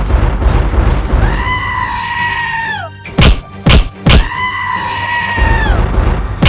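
Cartoon fight sound effects over background music: a long high-pitched cry that is held and then falls away, heard twice, with three sharp blasts between the two cries and another near the end.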